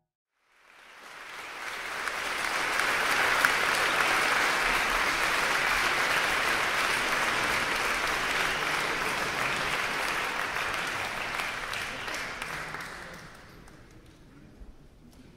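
Audience applauding. The clapping swells up over the first two seconds, holds steady, then dies away near the end.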